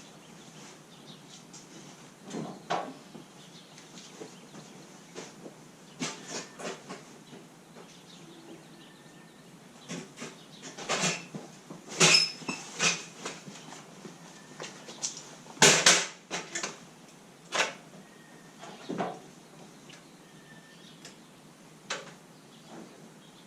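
Irregular clicks and knocks of objects being handled, a few dozen scattered strokes with the loudest near the middle, over a faint steady background.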